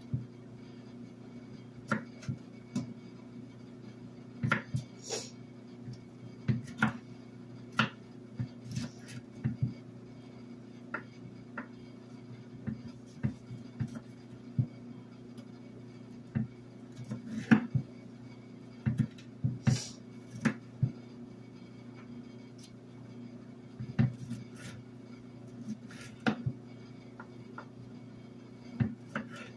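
Chef's knife chopping green bell pepper on a wooden cutting board: irregular knocks of the blade striking the board, coming in short runs with pauses between. A steady low hum runs underneath.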